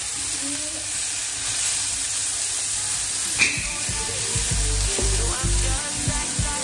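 Sliced mushrooms sizzling as they fry in a nonstick pan, stirred with a silicone spatula, with a single sharp click about halfway through. Background music with a bass beat plays underneath, its beat plainer in the second half.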